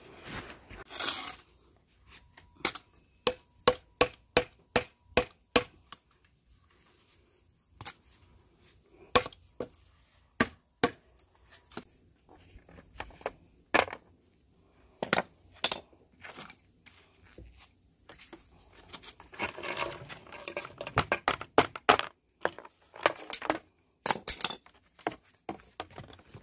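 Hammer driving a nail through a plastic rake head's socket into a wooden stick fitted as its new handle: a quick run of knocks, then single knocks every second or so, and a stretch of clattering near the end.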